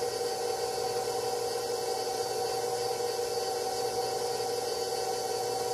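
Electric stand mixer running steadily at low speed, its motor humming with a steady whine as the paddle mixes flour into cookie dough in a glass bowl.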